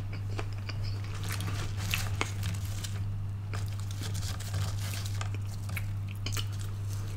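Crinkling and rustling of fast-food paper packaging, in quick irregular crackles with a few crunches, over a steady low hum.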